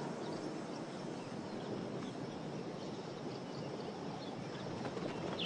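Steady outdoor savanna ambience: an even hiss, with a few faint high chirps.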